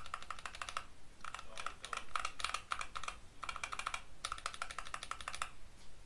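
Typing on a mechanical keyboard fitted with Gateron Optical Yellow linear switches: fast runs of keystrokes in several bursts with short pauses, stopping shortly before the end.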